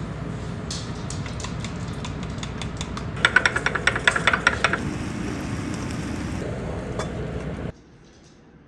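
A steady low hum, then about three seconds in a rapid run of sharp clicking, around eight strokes a second for a second and a half: chopsticks beating eggs against the side of a small ceramic bowl.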